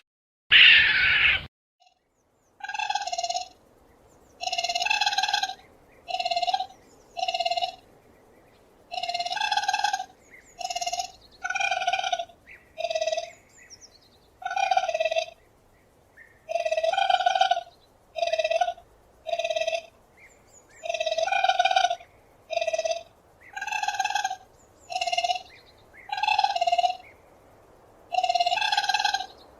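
Raccoon calling: a long series of short chirring calls, repeated about once a second. A brief loud rasping burst comes before them, in the first second or so.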